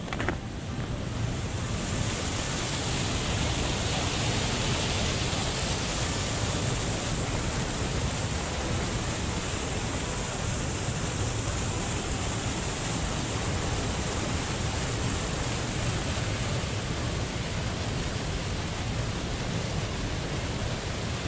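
Steady rushing of water pouring over a small weir waterfall into open water on an iced-over river.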